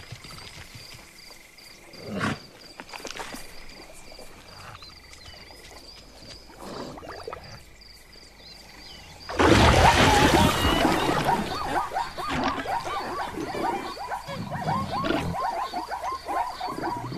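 Cartoon animal sound effects. A quiet savanna ambience with a steady high insect-like tone and a few small sounds gives way, about nine seconds in, to a sudden loud roar-like burst, followed by a string of short squealing calls, several a second.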